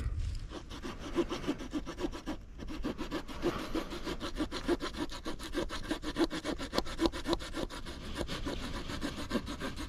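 Small saw blade of a folding pocket knife sawing through a thin wooden branch in quick, even back-and-forth strokes, with a brief pause about two and a half seconds in.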